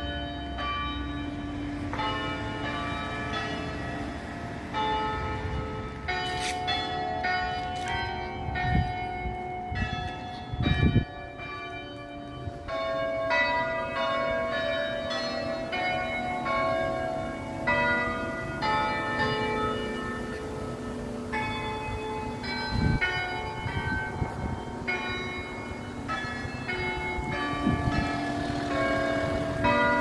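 Cathedral church bells pealing, many bells struck one after another with their ringing tones overlapping throughout. A couple of brief low thumps come through about ten seconds in.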